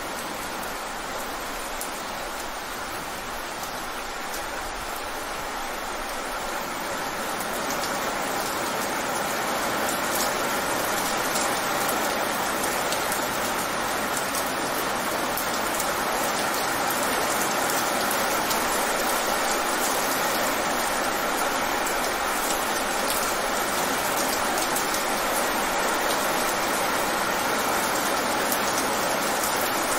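Rain falling fast on wet pavement: a steady hiss with a fine patter of drops, picking up a little about eight seconds in and then holding steady.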